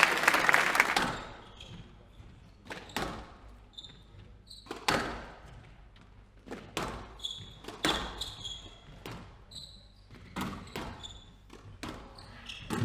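Squash rally: the ball struck by rackets and smacking the walls about once a second, with short shoe squeaks on the wooden court floor between shots. Applause fades out in the first second.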